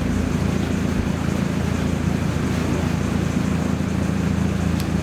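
Steady low mechanical hum with a single sharp click near the end.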